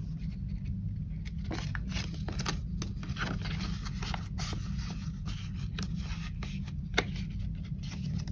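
Clear plastic cash envelopes and prop paper bills being handled: irregular crinkling and rustling with small clicks, and one sharper click about seven seconds in, over a steady low background noise.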